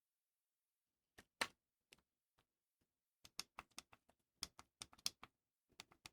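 An irregular run of sharp clicks and taps from hands handling the unboxed gear and its packaging: one louder tap a little over a second in, then a dense cluster of clicks from about three seconds in.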